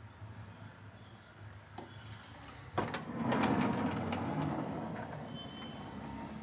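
A Toyota Hiace van's sliding side door unlatches with a sharp click a little before halfway, then rolls open along its track, the rumble fading over the next few seconds.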